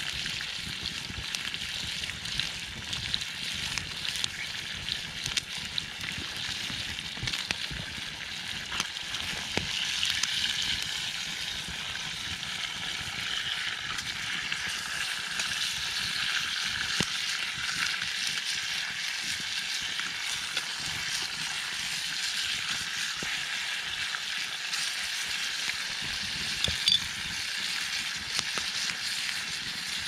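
Food sizzling steadily in a small frying pan held over a wood campfire, with the fire's small crackles running through it and one sharper pop near the end.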